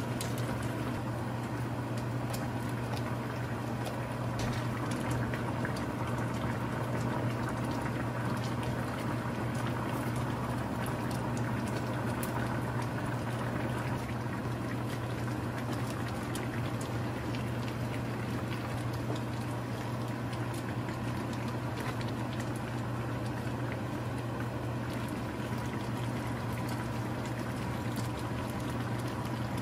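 Gochujang braised chicken stew (dakbokkeumtang) boiling in a frying pan, a steady bubbling over a constant low hum, with scattered light taps of a knife on a cutting board.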